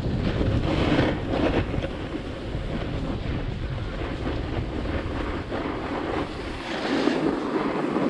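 Wind buffeting the microphone of a snowboarder's action camera, over the hiss and scrape of a snowboard sliding on packed snow. The wind rumble drops off about six and a half seconds in as the board slows, leaving the scraping of the snow.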